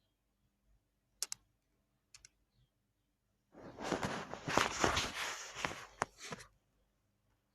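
Homemade slime squeezed and worked by hand: a couple of sharp clicks, then about three seconds of wet crackling and popping.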